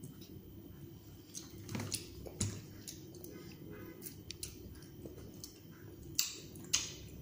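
Toddler chewing grapes: wet mouth sounds and lip smacks, with a few sharper smacks, two of them a little after six seconds in.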